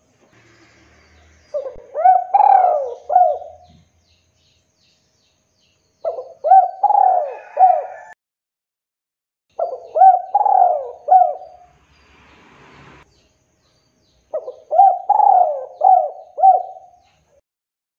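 Male spotted dove (tekukur) cooing: four phrases of several gliding notes each, about two seconds long and roughly four seconds apart.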